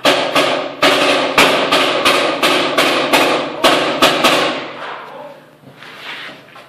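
Paintball markers firing in rapid bursts, about three shots a second, ringing off the bare walls; the shots stop about four and a half seconds in.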